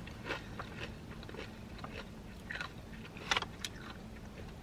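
Close-up chewing of a crunchy tortilla chip: irregular crunches, the loudest a little over three seconds in.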